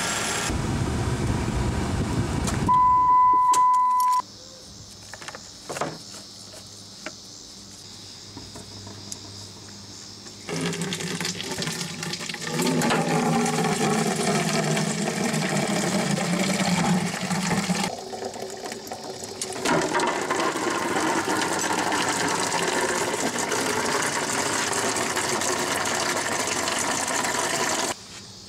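Coolant-and-water flush draining from the cooling system of a 2002 Saturn SL2 into a plastic jug, the third drain of a coolant flush: a steady splashing pour that starts about ten seconds in, grows stronger, dips briefly near eighteen seconds and runs on steadily. A short high beep sounds about three seconds in.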